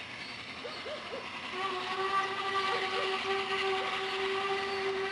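Steam whistle of a ČSD class 498.1 'Albatros' three-cylinder express steam locomotive, one long steady blast starting about a second and a half in, over a growing rush of train noise.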